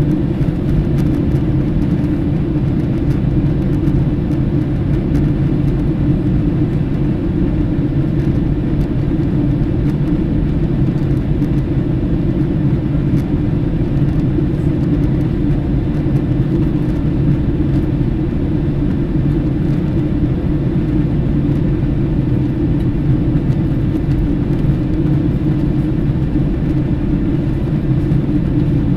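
Steady, unchanging low rumble of an aircraft in flight, with faint constant tones above it.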